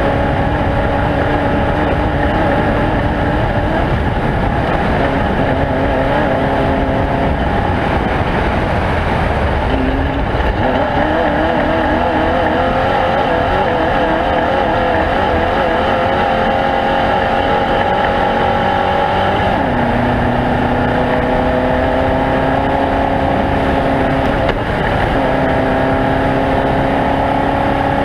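Off-road race vehicle engine running hard and loud throughout. Its pitch wobbles quickly up and down for a few seconds in the middle, then drops a step and rises again near the end.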